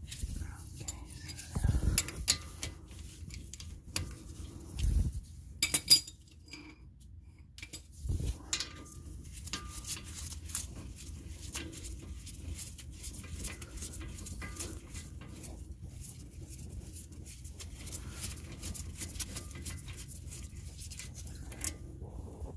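Cordless ratchet running as it backs out the second rear brake caliper bolt, with sharp metallic clinks of the socket and tool against the caliper in the first few seconds.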